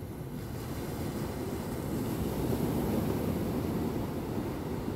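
Sea surf washing onto the beach, a rushing wash that swells to its loudest about halfway through and then eases.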